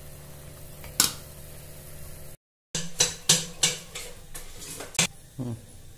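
A ladle stirring thick idli batter in a steel vessel, knocking against it once about a second in, over a steady low hum. After a brief break, a quick run of light clicks and taps and a soft knock near the end.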